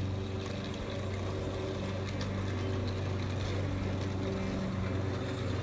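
A steady low hum with a light hiss over it, even in level throughout.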